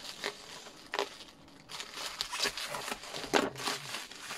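Plastic bubble-wrap packaging crinkling and crackling in irregular bursts as it is cut with a knife through hard packing tape and then pulled open by hand. The loudest crackle comes about three and a half seconds in.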